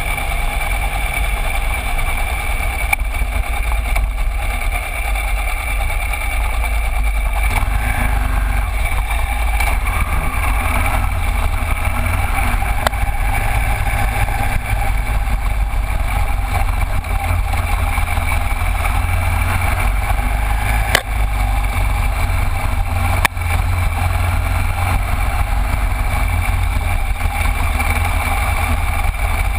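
Motorcycle riding slowly, a Cagiva Elefant 900 whose air-cooled Ducati V-twin runs steadily under a heavy low rumble of wind and tyre noise on the microphone. Two sharp knocks, about two seconds apart, come late on, as from stones or bumps on the gravel track.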